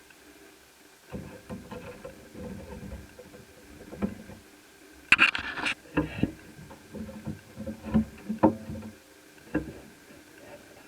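Handling noises from laptop parts during removal of the cooling fan: irregular clicks, light knocks and rustling, with one louder, sharper scrape about five seconds in.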